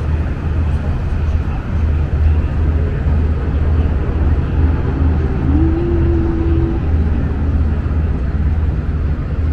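Tour boat's engine running on the river, a steady low throbbing rumble.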